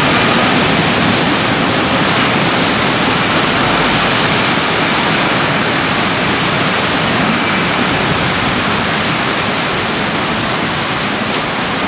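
Heavy surf breaking along the shore: a loud, steady rush of water noise.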